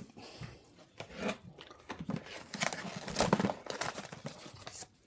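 A small cardboard accessory box being opened and its paper and packaging handled: irregular rustling with light knocks, stopping just before the end.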